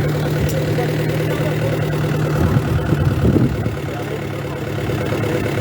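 A vehicle engine idling with a steady low hum, with a brief stretch of voices about halfway through.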